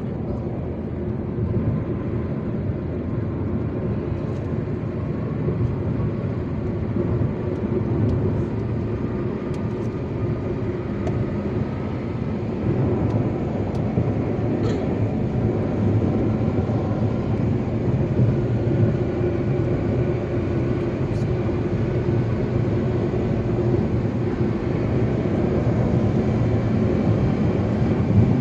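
Steady tyre and engine noise heard inside a car's cabin while it cruises at highway speed.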